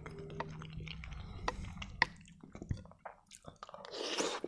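A metal spoon clicking and scraping against a plate as macaroni with ketchup is scooped up, in several sharp separate ticks. Near the end there is a short noisy mouth sound as the spoonful goes into the mouth.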